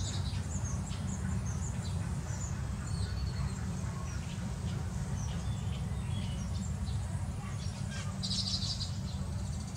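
Weaver birds chirping and chattering at their hanging grass nests in short, high notes, with a denser buzzy run of calls about eight seconds in. A steady low hum runs underneath.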